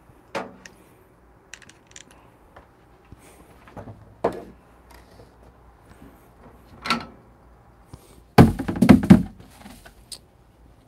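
Clicks and light clatter of espresso tools being handled on a wooden bench, then near the end a quick run of loud knocks and thuds.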